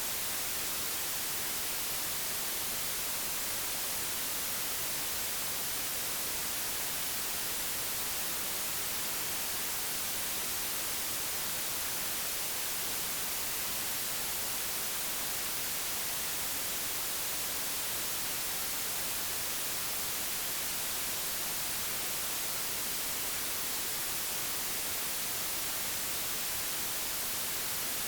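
Steady, unchanging digitally generated white noise: an even hiss, strongest in the high frequencies, with no other sound.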